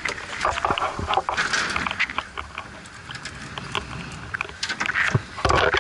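Deck noise of a fishing boat at sea: wind and water with many short knocks and clicks, and a louder burst of clatter near the end.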